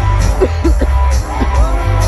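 Live band playing loud amplified music through a big outdoor PA: a pulsing bass beat with drum hits and a gliding melody line over it.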